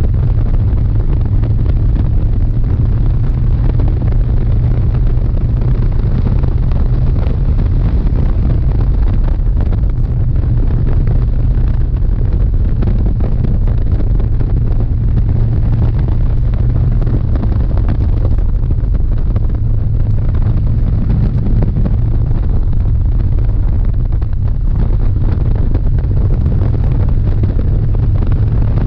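Harley-Davidson Dyna's V-twin engine running at a steady highway speed, a deep, even low engine note with no revving, mixed with wind rushing over the microphone.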